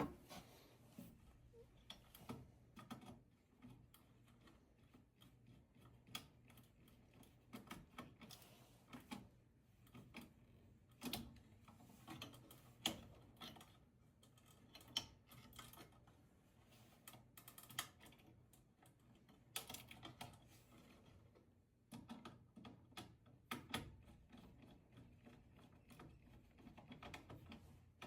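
Quiet, irregular clicks and light taps, several every second, over a faint low hum.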